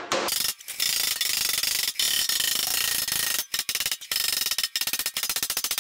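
Rapid, evenly spaced metallic ratcheting clicks, many per second, running with a few short breaks.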